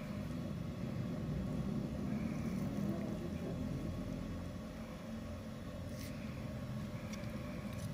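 Steady low hum of background noise, with faint clicks about six seconds in and again near the end.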